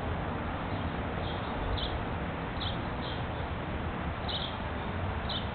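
A small bird chirping, short high notes every half second to a second, over a steady outdoor background hiss.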